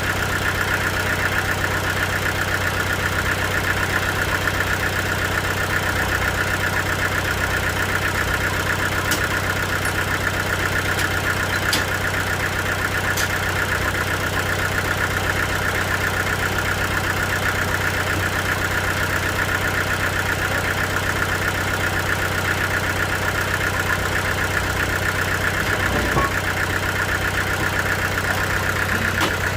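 Sawmill machinery running steadily with a constant hum and a steady high whir, with a few faint ticks.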